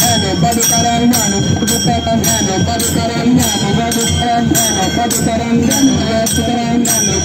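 Procession folk music: small brass hand cymbals clashing and ringing in a steady beat with a two-headed barrel drum, and a man singing through a microphone.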